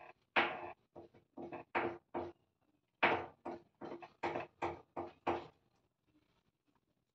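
About a dozen short scraping strokes in quick, uneven succession over about five seconds.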